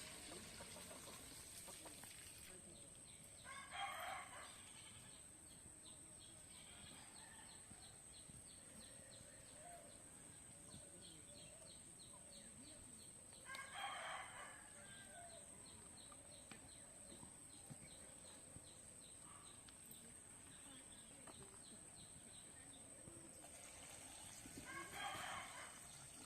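A rooster crowing three times, about ten seconds apart, each crow about a second long, over faint steady background noise.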